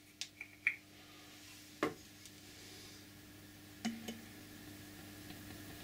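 A plastic oil bottle with a screw cap handled beside glass flasks: a few light clicks and taps, the two loudest about two and four seconds in, over a faint steady hum.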